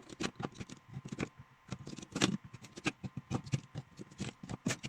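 Sony C5 lithium-ion cells being pushed one by one into a power-tool battery pack's plastic cell holder: a run of irregular clicks and knocks of metal-cased cells against plastic.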